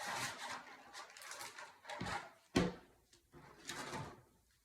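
Foil booster-pack wrappers crinkling and rustling as they are handled, in short bursts, with a single thump about two and a half seconds in.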